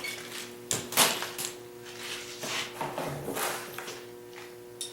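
Hand-handling clatter: several sharp knocks and clicks, the loudest about a second in, then a stretch of rustling, as parts and tools are handled. A faint steady hum runs underneath.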